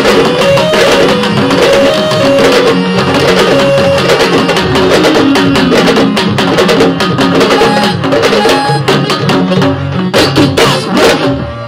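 Sabar drum ensemble playing a fast, dense rhythm of sharp stick-and-hand strokes, with a line of pitched notes moving beneath the drums. It breaks off right at the end.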